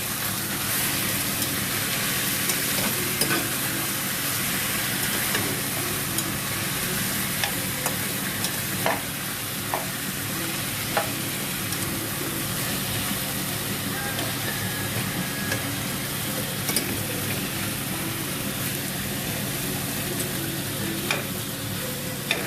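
Chicken pieces sizzling as they sauté in hot oil with garlic, onion and ginger, stirred with a metal spatula that clicks and scrapes against the pan now and then. A steady low hum runs underneath.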